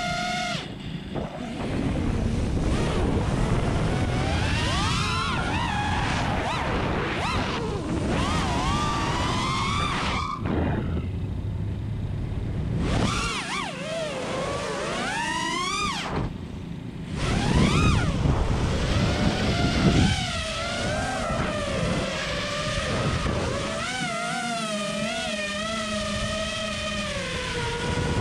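FPV quadcopter's brushless motors (Xing 2206 1700Kv spinning Ethix S4 props) whining, the pitch climbing and falling sharply with the throttle. The whine falls away twice for a second or two.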